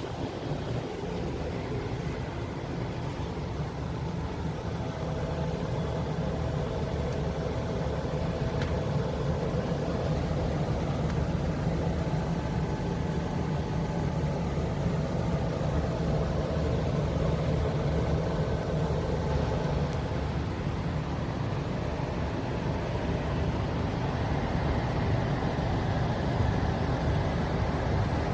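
Steady mechanical hum with a few faint steady tones, growing slowly louder.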